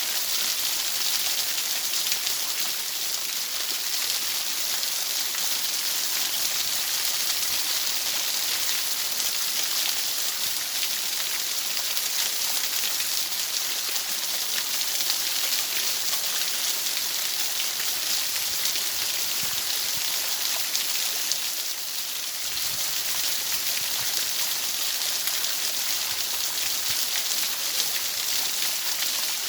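Steady hissing noise like rain, even and unbroken, brightest in the upper range.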